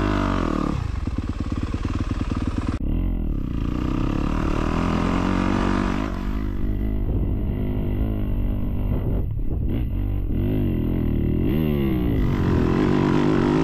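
Dirt bike engine revving as it is ridden, its pitch rising and falling again and again with the throttle and gear changes.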